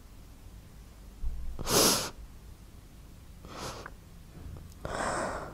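A person breathing hard three times, in noisy breaths or sniffs; the first, about a second and a half in, is the loudest.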